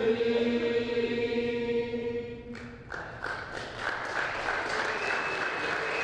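A pep band's final chord held steady for about two and a half seconds and cut off cleanly. About three seconds in, the audience breaks into applause and cheering.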